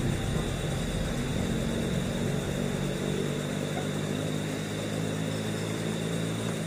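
A distant engine drones low and steady over a constant background hiss. The drone is clearest from about two seconds in.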